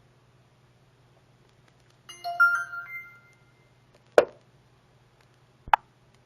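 A short electronic chime of a few quick stepped tones, then two sharp knocks about a second and a half apart, over a faint steady hum.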